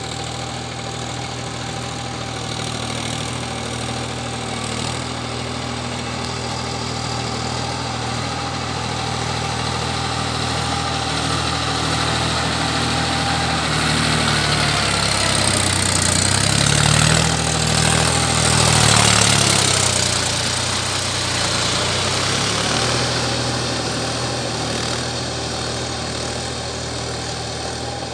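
Mahindra 275 DI SP Plus tractor's three-cylinder diesel engine running steadily under load while churning through a flooded paddy field. It grows louder and shifts in pitch as it passes close by about two-thirds of the way through, then fades as it moves away.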